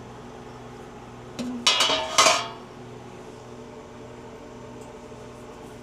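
Metal freeze-dryer tray clattering: a quick run of knocks and a rattle about a second and a half in, over a steady low hum.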